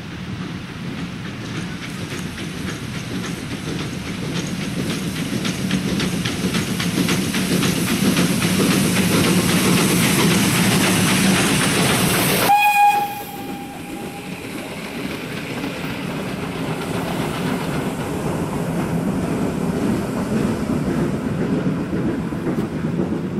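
A Pt47 steam locomotive running past with a passenger train, its rapid exhaust beats growing louder to a peak about halfway. The sound then drops suddenly and a brief whistle tone rings out, after which the coaches rumble and clatter past over the rail joints.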